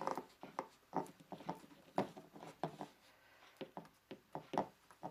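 Fingertips dabbing into and pulling away from tacky silicone caulk on a plastic cooler lid to texture it, making a run of irregular short sticky clicks and smacks.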